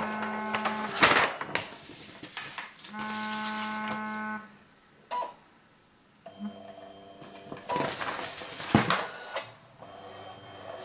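Canon iP90 inkjet printer running a printhead cleaning cycle: its motors whir in steady-pitched stretches of a second or so, broken by sharp clicks of the mechanism, with a short near-quiet pause about halfway through.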